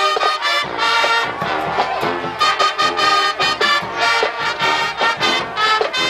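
High school marching band playing, with the brass out front in short, punchy accented chords.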